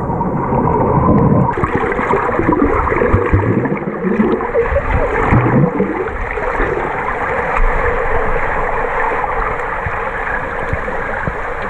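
Swimming-pool water heard underwater: steady muffled rushing and gurgling of water and air bubbles from a snorkeller swimming by, with a few low sliding tones between about three and six seconds in.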